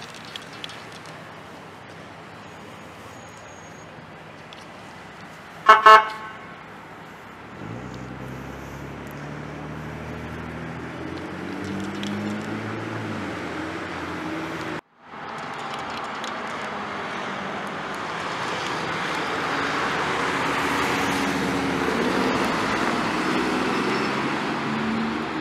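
A vehicle horn gives two quick toots about six seconds in, followed by a car engine accelerating away with rising pitch. After a short break, a dump truck's diesel engine runs steadily as it passes.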